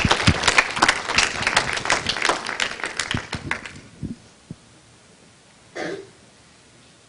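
An audience's applause, which dies away about three or four seconds in. Near the end, a single short cough.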